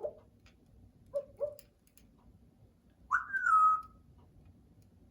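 Congo African grey parrot giving two short low chirps, then about three seconds in a loud whistle that starts high and slides down to a held note.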